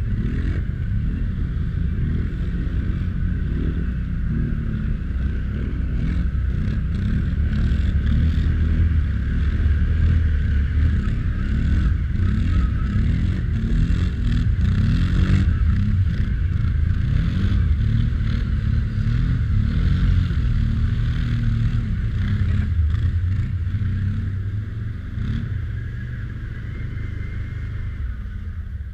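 ATV engine running under load through a creek crossing, its pitch rising and falling as the throttle is worked, easing off slightly near the end.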